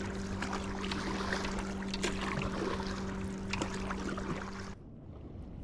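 Paddle dipping and pulling through seawater beside a stand-up paddleboard, with splashing and water trickling off the blade, over a steady low hum. The sound drops away abruptly near the end.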